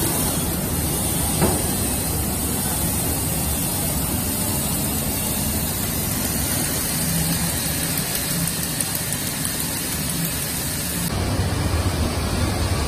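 A 30-inch, 48-feeder single jersey circular knitting machine with a striper running: a steady mechanical hum. About eleven seconds in the sound shifts to a heavier low hum.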